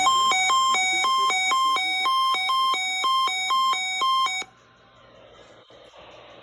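Weather-alert radio receiver's electronic alarm: a harsh two-tone beep alternating high and low about twice a second, set off by the weekly test, cutting off abruptly about four and a half seconds in and leaving faint radio hiss.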